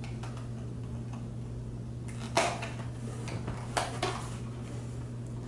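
Two sharp clicks, about a second and a half apart, from small objects being handled, over a steady low hum.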